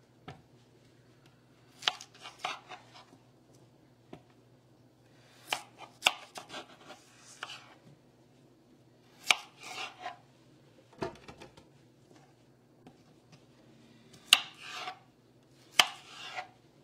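Knife chopping raw potatoes into chunks, in short runs of several quick cuts a few seconds apart.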